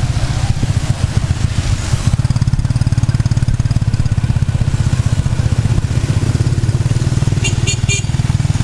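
Motorcycle engine running steadily under way, heard from on board in traffic, with three quick high beeps near the end.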